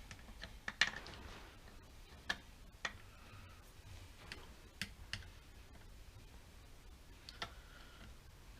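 Scattered sharp metallic clicks and taps from hand tools and parts being handled on a car engine's cam pulley and timing assembly. There are about eight irregular clicks, the loudest about a second in.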